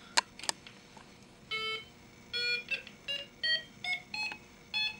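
Snap Circuits U26 electronic keyboard module playing a run of short beeping notes through its small speaker, stepping upward in pitch like a scale. Two sharp clicks come just before the notes begin.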